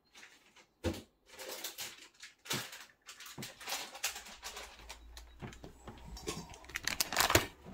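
Rummaging through parts and packaging: scattered clicks, knocks and rustling, with a louder burst of handling near the end.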